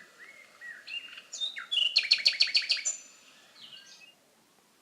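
A tit singing: a few short whistled notes, then a quick run of about eight sharp chirps about two seconds in, trailing off into faint notes.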